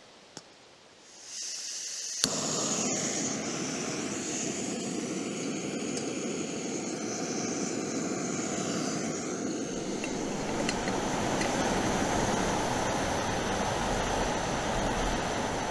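Camping stove being lit: a soft hiss starts about a second in, a sharp click comes just after two seconds, and then the burner runs with a steady rushing noise.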